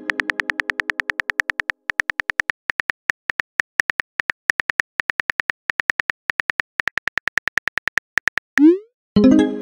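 Phone keyboard typing sound effect: a quick run of key clicks, several a second with short pauses. Near the end a rising whoosh and a chime mark the message being sent.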